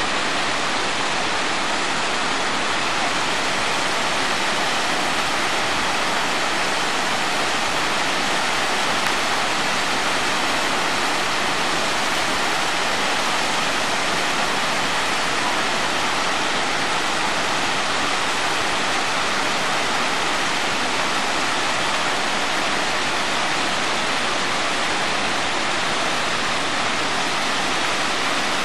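The Ganga (Bhagirathi) river rushing over the boulders of its gorge, a steady, unbroken sound of running water.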